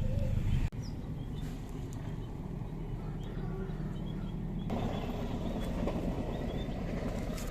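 Small electric motor and gearbox of a toy RC car running as it drives over rough ground, changing abruptly twice.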